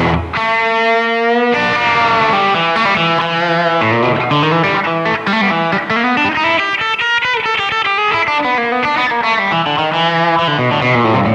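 Electric guitar playing through an amplifier on a 2020 Epiphone Les Paul Custom's bridge pickup: a chord held for about a second, then a busy run of quick single notes and chords.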